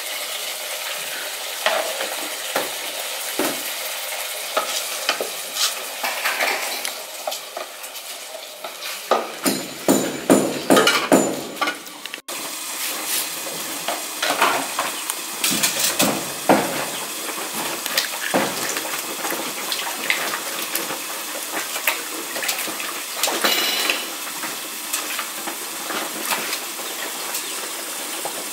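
Cooking pots, lids, plates and utensils clinking and knocking, over a steady sizzling hiss from the aluminium pot on the charcoal stove. A run of quick, loud knocks comes about a third of the way in.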